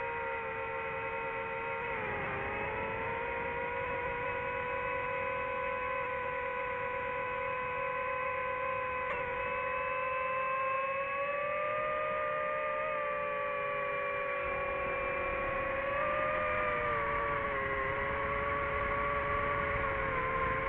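DJI drone's propellers and motors whining steadily in flight, several close pitches together. The pitch dips briefly about two seconds in and drifts up and down later as the drone manoeuvres.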